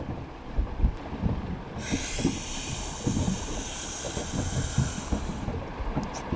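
Rumble and irregular low knocks of an inflatable boat rocking on the sea, with wind on the microphone. A steady hiss rises about two seconds in and stops a little over a second before the end.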